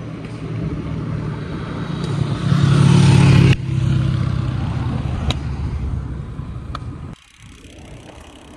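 Motor vehicle running close by on a road, loudest about three seconds in. The sound then cuts suddenly to quieter road noise near the end.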